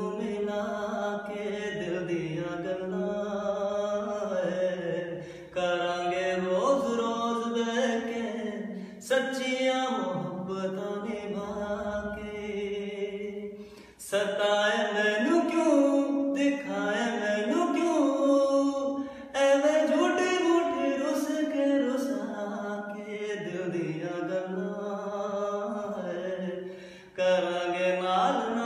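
A man singing unaccompanied, a slow ballad in long held, wavering notes. The phrases last several seconds, with short breaks for breath between them.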